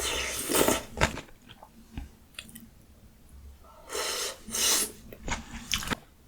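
Close-miked eating of ramyun noodles and kimchi. A long, noisy burst comes at the start, then a pause of about three seconds, then several more bursts about four to six seconds in.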